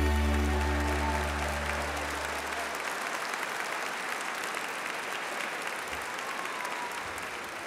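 Audience applauding, with the final held chord of the song's music ringing out under it and fading away over the first three seconds.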